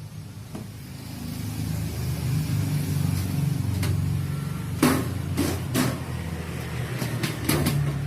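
A low rumbling hum that swells about a second in and holds, with several sharp clicks and knocks in the second half.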